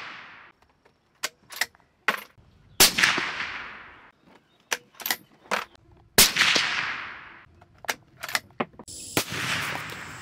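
Three suppressed .308 Winchester rifle shots about three seconds apart, each trailing off in a long echo, with lighter clicks between them.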